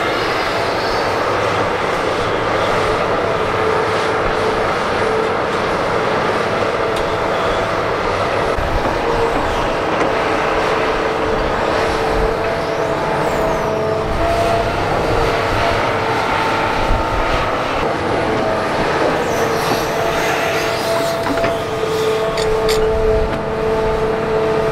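Hitachi Zaxis 350H excavator's diesel engine working under load, with a whine from the hydraulic pumps that fades and comes back as the boom and bucket move. Near the end there are a few knocks as the bucket digs into dirt and rock.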